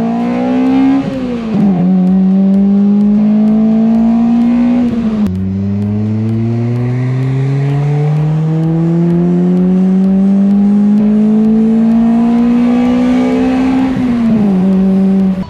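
Toyota Celica GT-S 2ZZ-GE four-cylinder engine pulling hard through the gears, its pitch climbing high and dropping sharply at each upshift, about a second and a half in, about five seconds in and near the end. It is revving into the high-rpm cam lift, which now engages firmly after the lift bolts were fixed.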